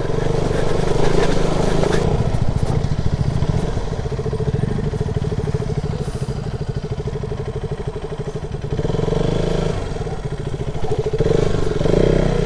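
Motorcycle engine running while riding, with a fast, even firing beat that swells a little about nine seconds in and again near the end.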